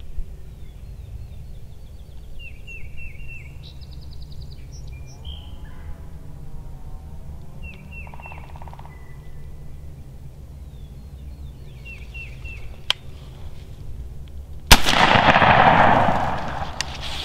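Short, high bird calls, then a single loud shotgun blast about fifteen seconds in that rolls away for a couple of seconds: the shot that drops a wild turkey gobbler.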